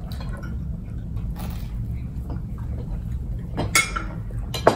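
Forks clinking against dinner plates during a meal, with two sharp clinks near the end, over a steady low hum.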